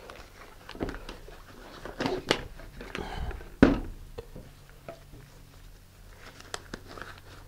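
Blue disposable gloves being pulled onto the hands: soft rubbery rustling broken by a few sharp clicks, the loudest about three and a half seconds in.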